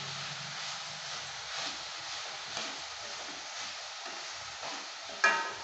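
Chopped onion, carrot and tomato frying in a steel pan as a spatula stirs them, a steady sizzle with a scrape about once a second. Near the end the spatula strikes the pan with one sharp, ringing clang.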